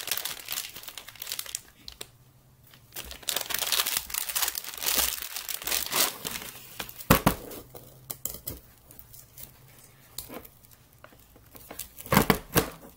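Clear plastic wrapping crinkling in bursts as it is torn open and pulled off a plaster block, with a few sharp knocks, the loudest about seven seconds in and near the end.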